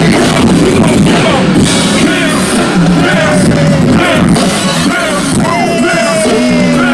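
Live concert music played very loud over a stage PA, with a repeating bass line, and crowd voices yelling over it.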